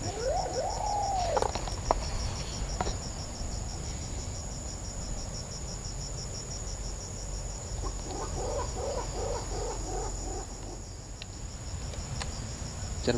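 Insect chorus of crickets or cicadas: a steady, evenly pulsing high trill. About two-thirds of the way through comes a brief run of quick, repeated chirping calls.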